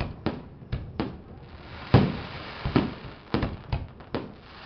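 Fireworks shells bursting in an irregular series of about a dozen sharp bangs, the loudest about two seconds in, over a steady hiss.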